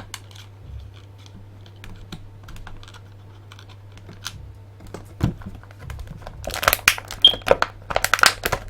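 Plastic packaging being handled: scattered small clicks and taps, then a dense run of louder crackling and clicking about six and a half seconds in.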